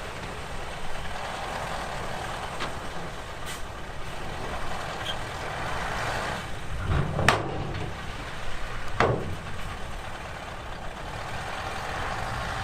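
Heavy diesel earthmoving machinery running with a steady low rumble, broken by two sharp sounds about two seconds apart a little after the middle.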